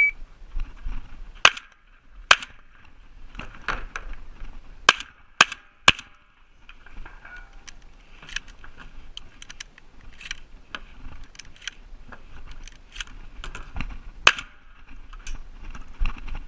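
Shotgun shots fired in an uneven string: two about a second apart, then three in quick succession about half a second apart, and one more near the end. Many fainter clicks and knocks fall between the shots.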